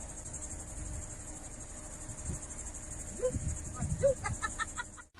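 Crickets chirring steadily in a high, finely pulsing drone, with a few faint low thumps and short blips about three to four seconds in.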